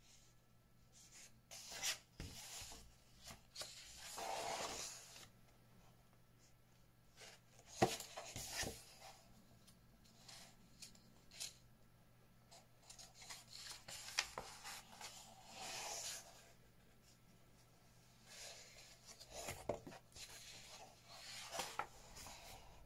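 Paper pages of a paperback workbook being turned and smoothed flat by hand: quiet rustling and sliding in several separate bouts, with a few sharp ticks.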